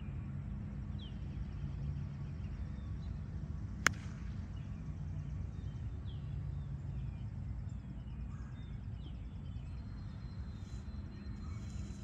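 A single sharp crack of a golf club striking the ball, almost four seconds in. Birds chirp throughout over a steady low rumble.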